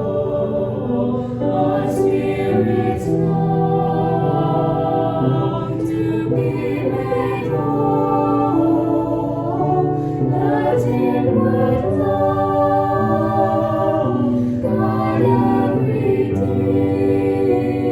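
Choir singing a slow worship song.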